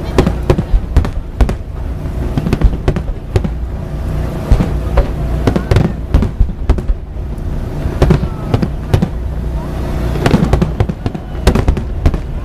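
Aerial fireworks bursting in quick succession: a dense run of sharp bangs, several a second, over a steady low rumble.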